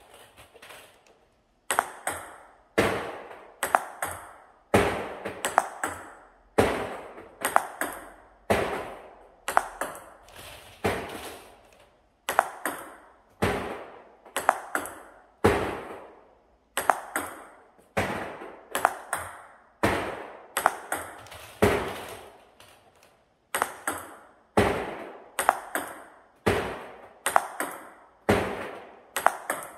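Table tennis ball knocking on the table and off a rubber-faced paddle during a forehand flick drill: quick clusters of two or three sharp clicks, repeating about once a second.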